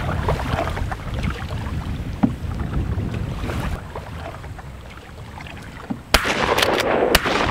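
Canoe being paddled, paddle strokes in the water with wind on the microphone. About six seconds in, a single loud shotgun shot, followed by more sharp cracks.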